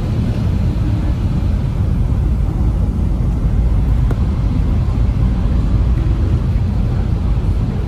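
Sydney Metro Alstom Metropolis train running at speed through a tunnel, heard from inside: a steady, loud low rumble of wheels on rail.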